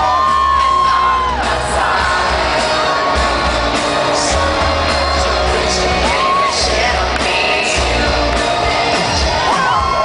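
Live pop song played loud over an arena sound system: a woman sings short phrases over a heavy bass, heard from within the audience, with people shouting and whooping around the recorder.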